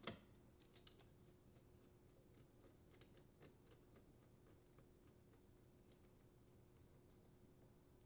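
Near silence with a few faint metallic clicks of a nut driver and screw on a dishwasher's sheet-metal terminal box as the ground screw is driven in. The sharpest click comes right at the start, with a couple more about a second in and around three seconds in, then only sparse faint ticks.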